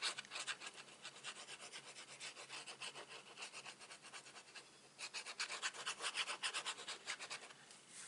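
Tip of a liquid glue bottle scratching and rubbing across kraft cardstock as glue is drawn on in lines, a run of quick scratchy strokes that pauses briefly just before halfway and then comes back louder.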